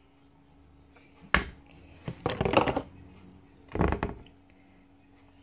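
Batter-coated kitchen utensils knocking and clattering against a dish: one sharp knock, then a short rattling run of knocks, then another brief clatter.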